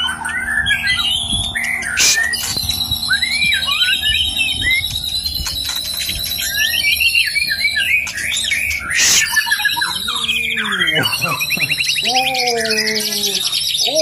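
White-rumped shamas (murai batu) singing: a varied run of quick whistled sweeps and phrases, turning into a fast high trill in the second half. Near the end a lower, falling call is repeated about three times.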